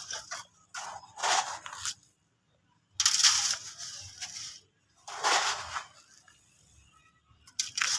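Dry sand-cement and concrete crumble being shaken through a sifter in separate gritty, hissing bursts of about a second each, with short pauses between them.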